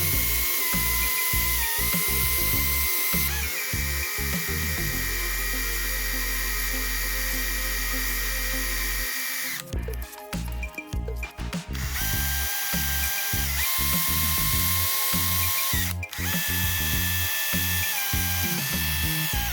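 Small electric power tool motor running with a high whine that shifts up and down in pitch as the load changes, cutting out for about two seconds near the middle. Background music plays underneath.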